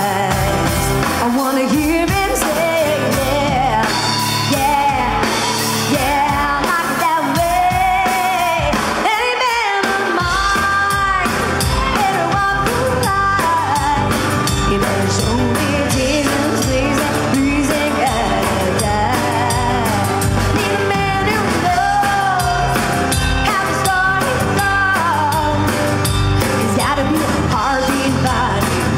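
Live band playing: a woman singing into a microphone over electric guitar and drum kit.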